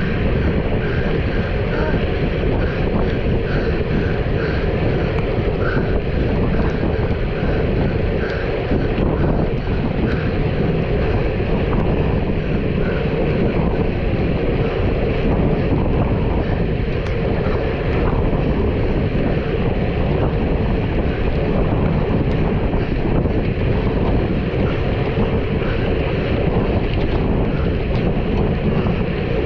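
Loud, steady wind rushing over the microphone of a rider moving at speed, with no break through the whole stretch.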